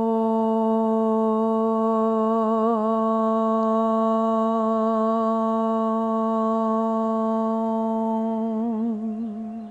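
A woman's voice humming one long sustained note on a single pitch, held steady at even loudness; it wavers briefly about three seconds in and again near the end before stopping.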